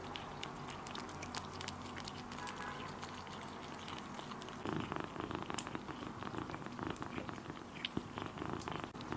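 Kittens chewing cooked shrimp and lapping egg-yolk sauce close to the microphone, with many small wet clicks and a steady purr underneath. From about five seconds in, the wet licking and smacking gets denser and louder.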